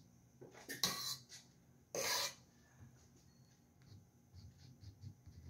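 A metal cake spatula scraping through whipped cream, twice in quick succession: two short rasping scrapes about a second apart, then only faint handling noise.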